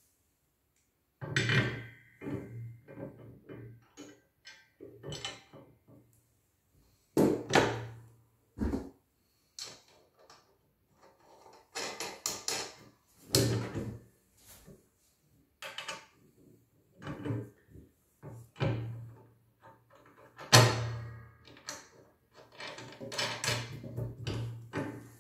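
Steel plow parts knocking and clanking as a pivot lever and pivot bracket are handled, fitted and bolted onto a steel plow blade frame. The knocks and rattles are irregular, with short pauses between them, and the loudest come about seven seconds in and again about twenty seconds in.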